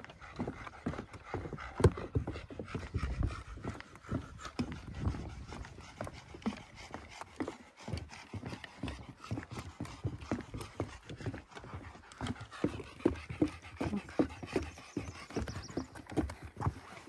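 Footsteps walking steadily along a forest trail, a quick, uneven run of scuffs and thuds, with panting breath close to the microphone.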